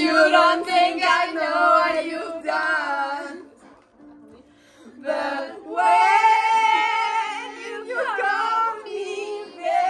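Two teenage girls singing together loudly and theatrically. They pause for about a second and a half a few seconds in, then sing on.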